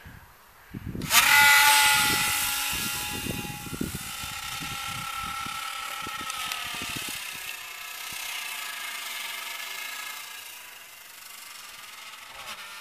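Small electric coreless motor and propeller drive shaft of a supercapacitor-powered BD-5 foam free-flight model, starting up about a second in and whining at a high pitch. The whine wavers in pitch and slowly fades as the plane climbs away.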